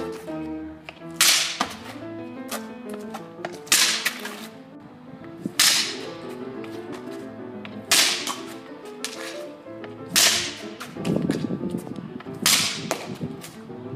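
Hockey stick slapshots on asphalt: about six sharp cracks of the blade striking the ground and a street-hockey ball, one every two seconds or so, over background music.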